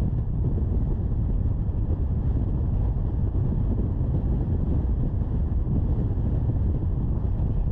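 Steady low rumble of a car driving on a road: engine and tyre noise with wind buffeting the microphone.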